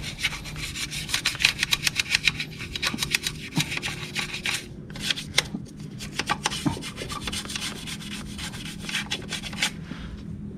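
A small brush scrubbing the CVT housing and pulley shaft of a Yamaha NMAX scooter in quick back-and-forth strokes, stopping about a second before the end.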